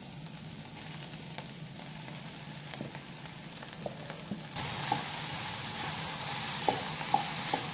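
Vegetables and cooked vermicelli sizzling in an oiled pan. About halfway through the sizzle gets suddenly louder, and a spatula stirs the vermicelli in with a few short knocks against the pan.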